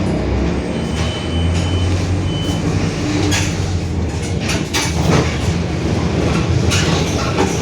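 Mercedes-Benz OF-1721 city bus heard from inside while driving: a steady low hum from the engine and drivetrain, with the body rattling and clacking throughout and the differential growling. A thin high beep sounds twice in the first few seconds.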